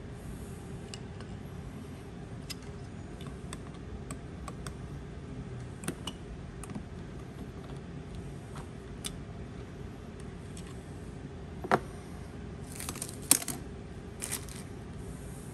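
Small scattered metal clicks and taps as a screwdriver works the wire terminal screws on the brushes of a Ford Model A generator, with a louder clack near twelve seconds in. Short crinkles of a plastic parts bag follow.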